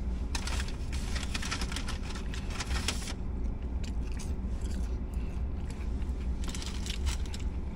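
Paper fast-food bag rustling and crinkling as a hand rummages inside it for about three seconds, then a few quieter scattered crinkles, over a low steady hum.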